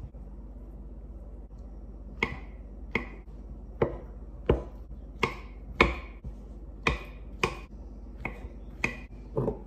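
Kitchen knife slicing peeled bananas on a wooden chopping board: starting about two seconds in, the blade knocks on the board about eleven times, one cut every two-thirds of a second or so.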